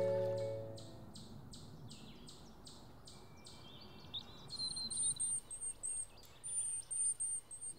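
Soft title music fading out in the first second, then quiet woodland ambience with a bird calling: a run of quick high ticks, then a series of very high, thin chirps repeated through the second half.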